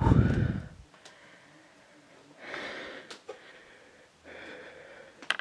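A loud, deep thud right at the start, then two heavy, frightened breaths close to the microphone, with a few small clicks.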